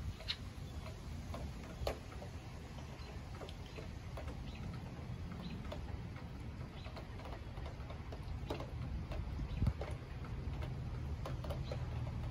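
Outdoor thunderstorm ambience: a steady low rumble with scattered, irregular sharp ticks and clicks, a few a second, the loudest about two seconds in and near the end.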